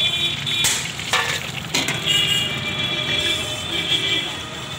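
Hot oil sizzling in an iron kadhai as fried chicken is lifted out with a steel perforated skimmer, with three sharp metal knocks of the skimmer on the pan in the first two seconds.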